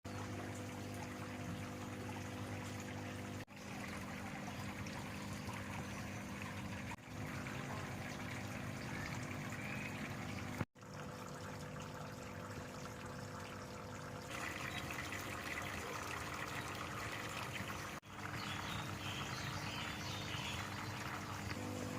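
Water trickling and splashing steadily through a recirculating aquaponic system, over a steady low hum. The sound drops out briefly four times.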